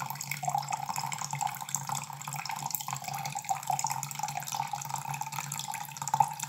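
White alcohol vinegar pouring in a thin stream from a bottle into a plastic measuring cup of water and alcohol: a steady trickling splash of liquid into liquid.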